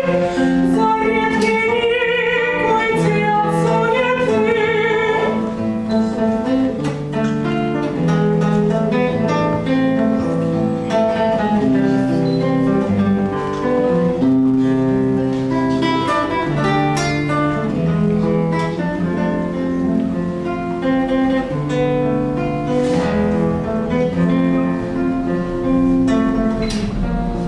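A woman singing a Russian romance with vibrato to acoustic guitar accompaniment. Her voice ends about five seconds in, and the guitar plays on alone.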